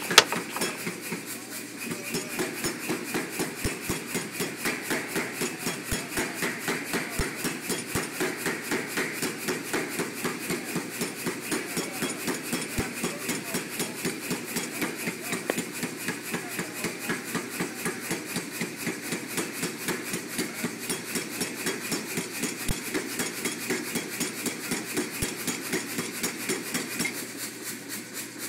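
Power hammer striking a hot steel bar in a steady, rapid rhythm of about four blows a second, drawing it out into a tenon. The blows start about two seconds in and soften near the end.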